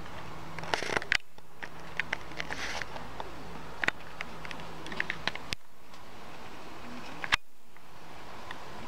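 Light clicks, ticks and rustles from a hand-held camera being handled, over a steady low background hum. The hum drops out abruptly three times.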